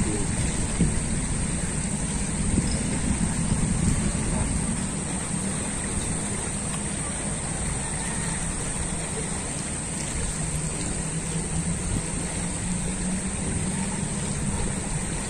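Steady low rumble and rush of a fast-flowing, flood-swollen muddy river current.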